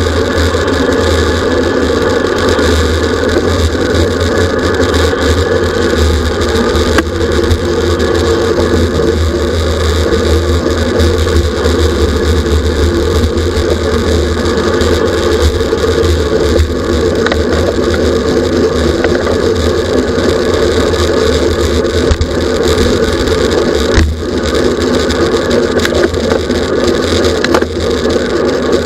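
Loud, steady wind rush and low rumble on the microphone of a camera riding on a racing bicycle at speed.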